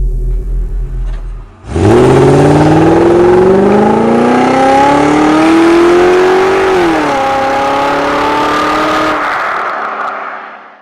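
A car engine revving up: its note climbs steadily for about five seconds, drops about seven seconds in as at a gear change, then holds and fades before cutting off. It is preceded by a low steady hum for the first second and a half.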